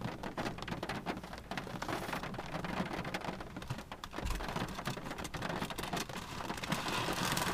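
Rain falling on a car, heard from inside the cabin: a dense, steady spatter of separate drops striking the roof and glass. A dull low thump about four seconds in.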